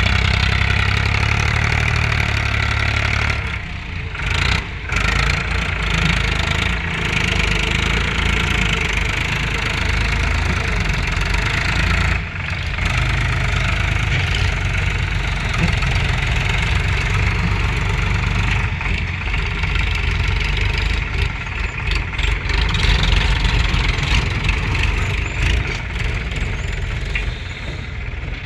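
Diesel engine of heavy farm machinery running steadily, with a couple of brief dips in level.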